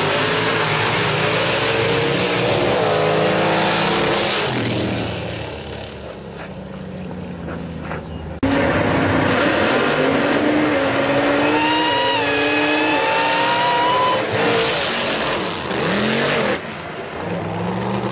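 Drag race cars launching at full throttle, engines climbing in pitch and then fading as they pull away. After a sudden cut, another pair of drag cars accelerates hard, with engines revving up and tire squeal.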